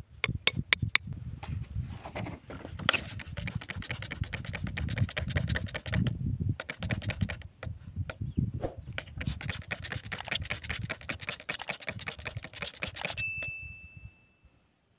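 Fingers scraping and rubbing gritty, muddy soil around a stone close to the microphone: a dense run of scratchy clicks that stops about 13 seconds in. A short single bell-like ding follows, the sound effect of a subscribe-button animation.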